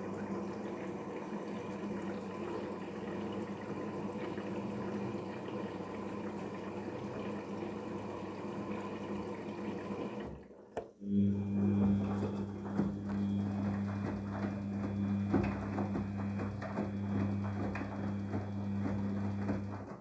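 Daewoo DWD-FT1013 front-loading washing machine rinsing: water running and sloshing in the drum. After a short break about halfway, a steady low hum joins the splashing, with many small knocks and clicks.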